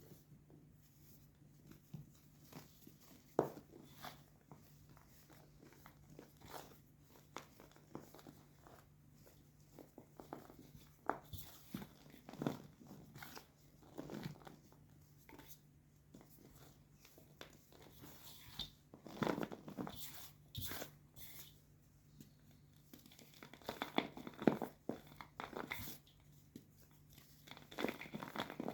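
Blocks of white gym chalk being crushed, with irregular dry crunches and crackles in uneven clusters, busiest in the second half.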